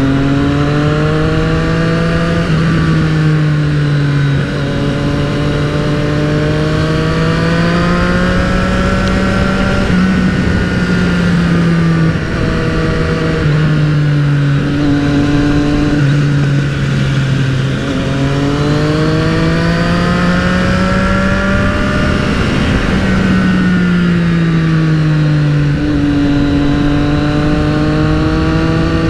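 Triumph motorcycle engine heard from the rider's seat, repeatedly rising in pitch under acceleration and falling as the throttle eases or the gears change, over a steady rush of wind and road noise.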